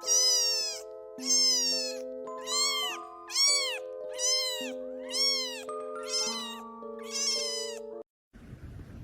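A string of cat meows repeated in an even rhythm over sustained music chords, about one meow every 0.8 seconds, like a song made from meow samples. It stops abruptly about eight seconds in, leaving faint room noise.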